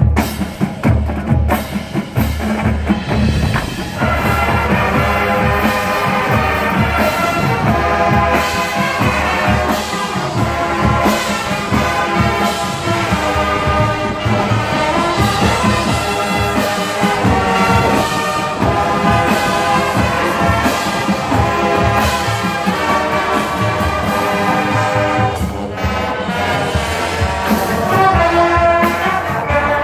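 College marching band playing its show: the percussion starts alone with a run of drum strokes, and about four seconds in the full brass section comes in and plays on with the drums.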